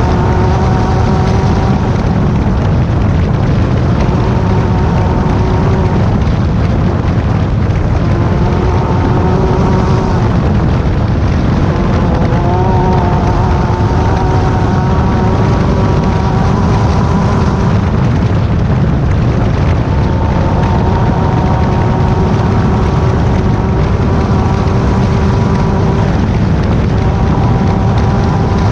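Class 10 desert race car's engine running hard and steadily over a loud, dense low rumble, its note stepping slightly in pitch now and then.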